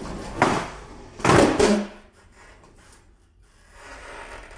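Skateboard tail snapping down on a concrete floor for the pop about half a second in, then a louder clatter of the board and wheels landing and scraping on the concrete about a second later.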